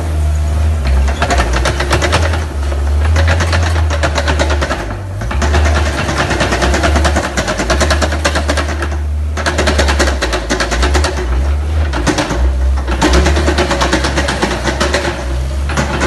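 Weidemann compact loader's diesel engine running under load close by, with a fast even rattle, dipping briefly a few times as the grab works.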